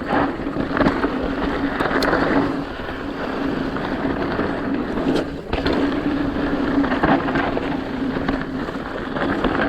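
Mountain bike rolling fast down dirt singletrack: tyres crunching and rumbling over dirt and rocks, wind on the microphone, and frequent clicks and rattles from the bike, with a steady buzz that drops out for a while around the middle.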